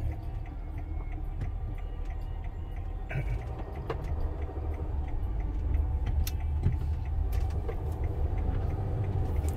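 Vehicle cabin noise while driving: a steady low engine and road rumble, with a few scattered light clicks.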